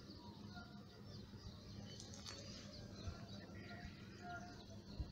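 Faint birdsong: several small birds chirping, with short repeated whistled notes and quick high chirps over a steady low hum. Two brief thumps, about three seconds in and near the end.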